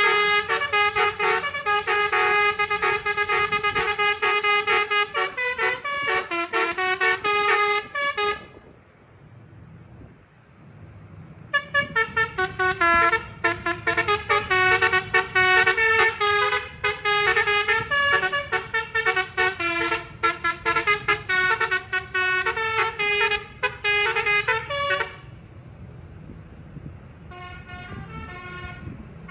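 A TJM Trans bus's telolet basuri horn playing a fast melody of short, tuned toots. It plays for about eight seconds, stops for about three, plays again for about thirteen seconds, and starts once more briefly near the end. A low engine rumble carries on through the pauses.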